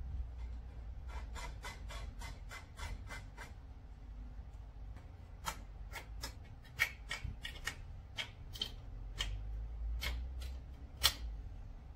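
Hand-fastening hardware in a wooden table pedestal: a quick run of even clicks, about four a second, then scattered sharper clicks and taps of metal on wood.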